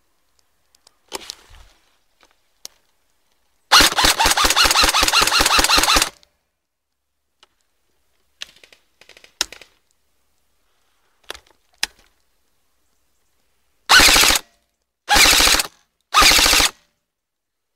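Airsoft rifle firing on full auto: one sustained burst of about two seconds, then three short bursts in quick succession near the end, with faint handling clicks in between.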